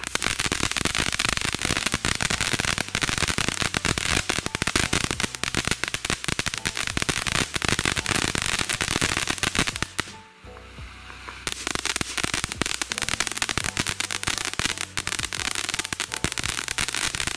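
Consumer fountain firework (Freedom Fireworks' Smile) spraying sparks with dense, fast crackling. The crackle drops away briefly about ten seconds in, then starts up again.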